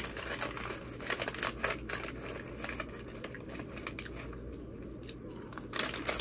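A paper food wrapper being handled and crinkled, in bursts of rustling during the first two seconds and again near the end.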